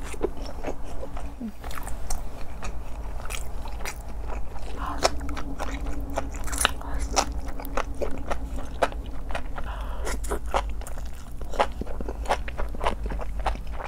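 Close-miked biting and wet, sticky chewing of chewy rice-paper wraps filled with spicy buldak noodles: a dense run of sharp mouth clicks and smacks, several a second.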